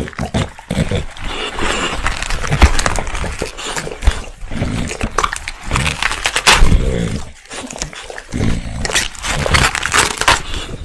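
English bulldog crunching and chewing big leafy green leaves right at a microphone, a dense wet crackle of tearing leaves, with low grunts from the dog between bites.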